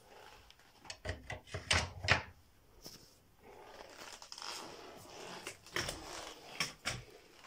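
Handling noise: a run of sharp knocks and clicks, then a softer stretch of rubbing and rustling, then a few more knocks near the end.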